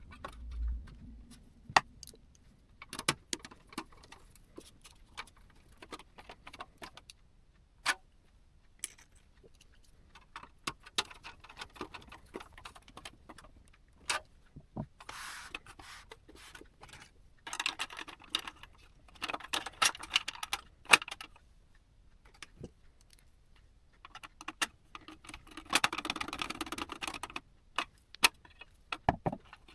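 Hands handling computer parts and small hardware: scattered sharp clicks and metallic clinks, with three spells of denser scraping and rustling.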